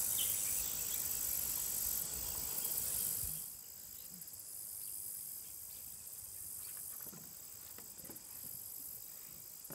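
Chorus of crickets in the grass, a steady high-pitched trilling, with a low rumble underneath that stops about three seconds in.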